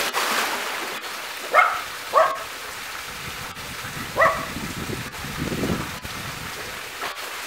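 A person jumping into a swimming pool with a splash, then water sloshing as he swims. A dog barks three times, short sharp barks about one and a half, two and four seconds in.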